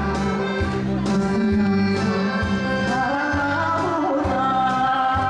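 A woman singing a Korean trot song into a microphone over an accompaniment with a steady drum beat.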